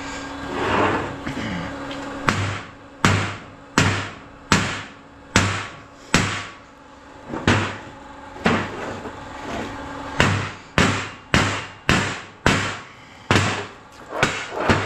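Repeated hammer blows on the steel case of a scrap transformer, sharp metallic strikes with a short ring, a little more than one a second from about two seconds in, to crack the welded case open.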